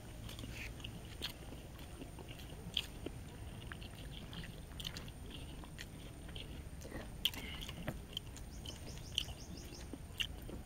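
Close-up chewing and mouth sounds of people eating sisig, chopped grilled pork, with their hands: scattered short clicks and smacks, a few louder than the rest.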